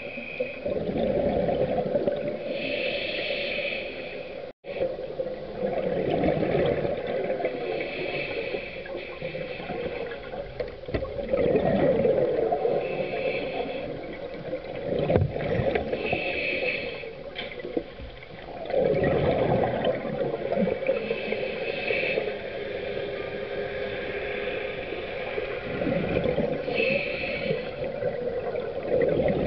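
Scuba diver breathing through a regulator underwater: a hissing inhale followed by a longer, louder rush of bubbling exhaust, repeating about every five to six seconds.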